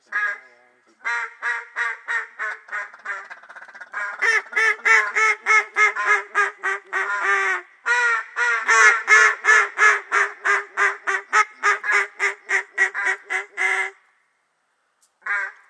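Mallard-style duck call blown in a long run of short, even quacks, about three a second. It grows louder and a little faster from about four seconds in, breaks off briefly near eight seconds, stops near fourteen, and gives one last quack near the end.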